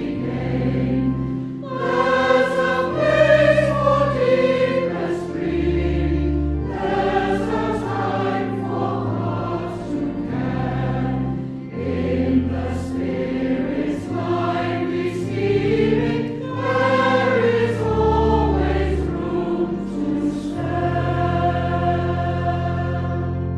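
A congregation singing a hymn in parts over a steady accompaniment of held bass notes, finishing on a long sustained final chord that stops near the end.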